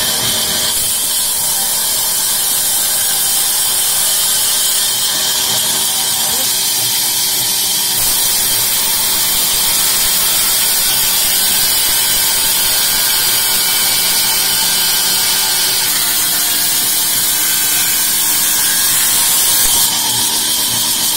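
Sawmill band saw running steadily as its blade rips lengthwise through an acacia log: a constant machine hum under a high hiss.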